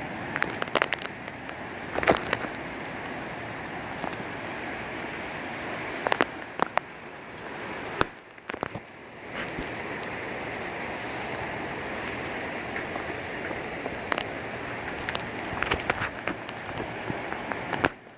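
Heavy thunderstorm rain and wind, a steady rush broken by many sharp taps of drops or blown debris striking nearby surfaces.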